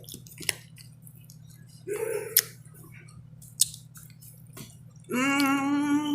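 Eating at a plate with a spoon: a few sharp clicks of the spoon on the dish and mouth noises, then about five seconds in a long, steady closed-mouth 'mmm' hum of enjoyment.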